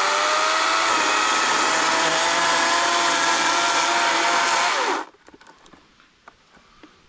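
EGO cordless electric chainsaw running at full speed, cutting through a branch with a steady whine. The motor cuts out and winds down about five seconds in.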